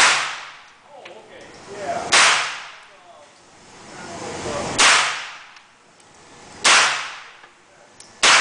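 9 mm rifle firing single shots, five in all, spaced about two seconds apart. Each shot is a sharp report followed by a long fading echo.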